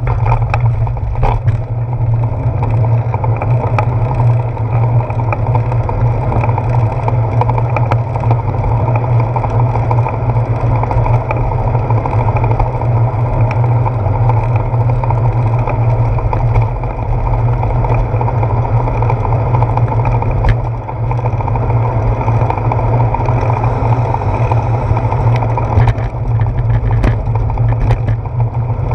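Steady rumble and hiss of a bicycle riding on wet pavement, heard through a handlebar-mounted action camera: wind on the camera plus tyre and road vibration, with scattered clicks and knocks.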